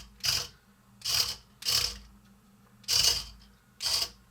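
Small electric motors and gears of a Hexbug Fire Ant remote-control robot whirring in five short bursts with quiet gaps between, as its tracks are driven in stop-start moves.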